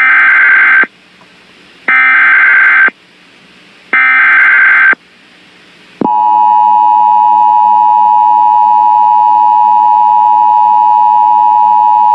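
Emergency Alert System alert signalling: three loud electronic data bursts, each about a second long with a second's gap, the digital header that opens a new alert. About six seconds in, the steady electronic attention tone starts and holds, announcing the warning that follows.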